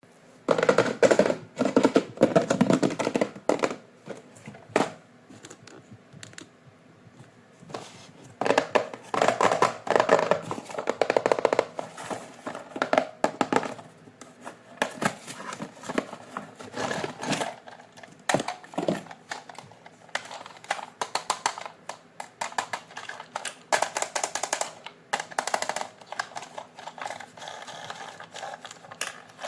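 Toy boxes and their cardboard and plastic packaging being handled: irregular clicks, taps and rustling in bursts, with quieter gaps between.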